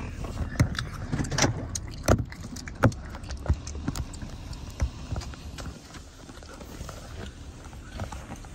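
Automatic car wash heard from inside the car's cabin: irregular knocks and taps against the body over a low rumble, thinning to a steadier hiss after about five or six seconds.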